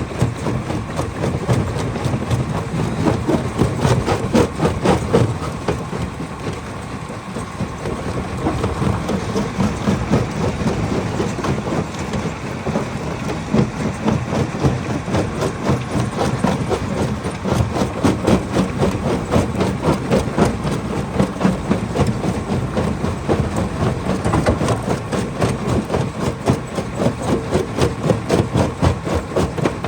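Hammer crusher running and breaking stone: a dense, continuous clatter of rapid knocks over a steady low machine drone.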